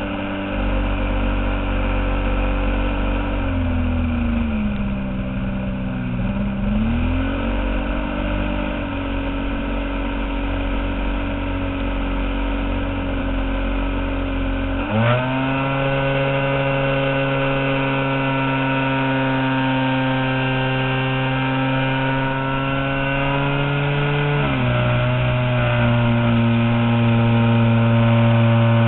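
Giant-scale RC airplane's engine and propeller running at steady throttle. The pitch sags and recovers a few seconds in, jumps suddenly higher about halfway through, and steps down again a few seconds before the end.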